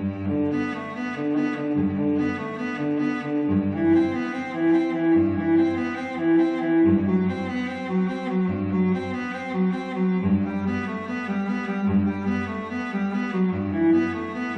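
Background music led by low bowed strings, cello-like, playing a steady melodic line.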